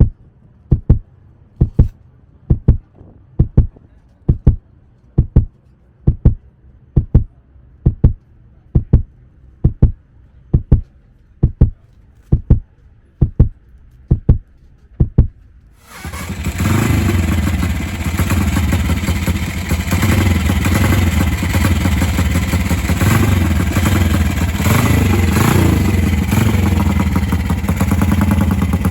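A heartbeat thumping steadily about once a second. About 16 seconds in it gives way suddenly to a Ducati 350cc racing motorcycle's engine running loud and steady.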